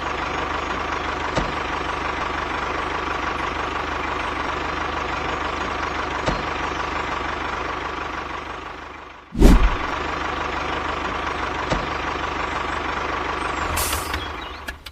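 Engine running steadily, like a mini tractor's. It fades away about nine seconds in, a single loud thump follows, and then it runs on again.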